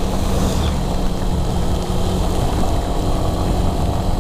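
Motorcycle engine running steadily at cruising speed, heard from the rider's seat, with a rough rumble of wind and rain noise over the microphone.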